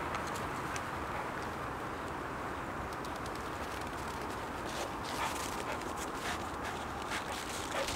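Siberian husky sniffing about in snow, with a few short sharp sounds in the second half over a steady background hiss.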